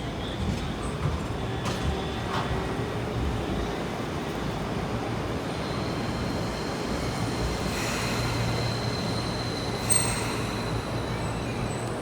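Toyama Chihou Railway train running, with a steady rumble and a few sharp clicks. A thin, high, steady squeal joins about halfway through.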